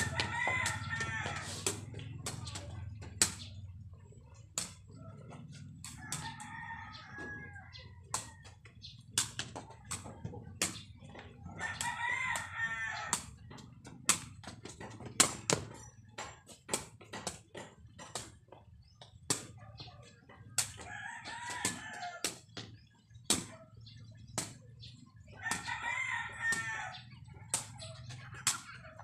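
A sepak takraw ball kicked back and forth, with a sharp knock at each touch, often one or two a second. Roosters crow through it: five long crows, spread across the stretch.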